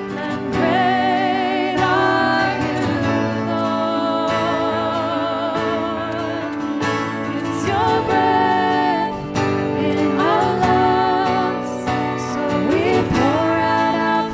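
Worship song: a singer holding long notes with vibrato over steady instrumental accompaniment.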